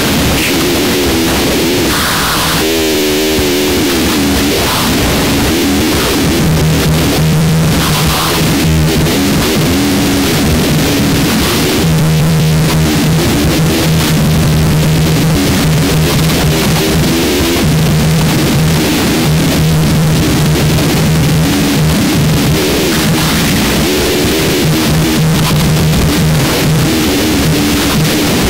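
Harsh noise music: a loud, dense wall of distorted noise spread across the whole range, with warbling mid tones. A steady low drone cuts in about six seconds in and drops out and returns several times.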